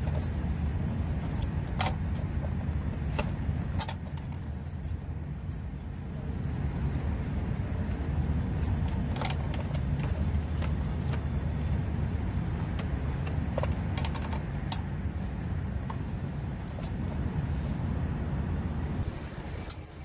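A steady low engine hum that eases off near the end, with scattered sharp clicks and snips of scissors and metal tools being handled.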